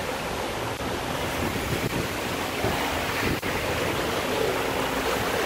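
Water from a burst water main welling up through the broken road surface and rushing across the street: a steady rushing noise.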